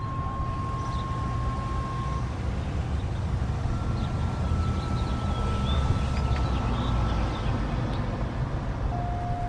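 Steady low outdoor rumble, with a few faint high chirps around the middle.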